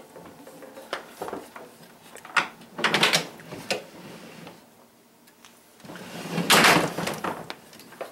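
Cirqus Voltaire pinball playfield being lowered into the cabinet and lifted back up: knocks and clunks, with two longer scraping, sliding noises about three seconds in and between six and seven seconds in, the second the louder.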